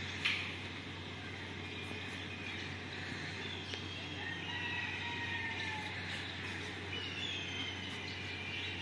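A bird calling: two long, drawn-out calls that glide in pitch, the first about three seconds in and the second near the end, over a steady background hum.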